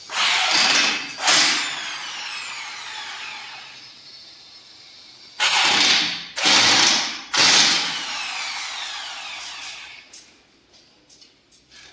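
Corded electric drill run in about five short bursts, drilling holes: three close together near the start and three more a little past halfway, the motor's whine falling in pitch as it spins down after each release of the trigger.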